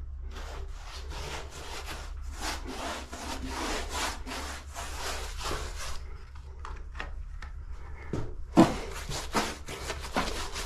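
Bristles of a 3-inch disposable paintbrush scrubbing PVA sealer onto textured drywall in quick back-and-forth strokes, with a few louder strokes near the end.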